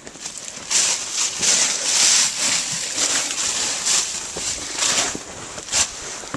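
Footsteps crunching and rustling through dry fallen leaves, irregular crunches about one or two a second.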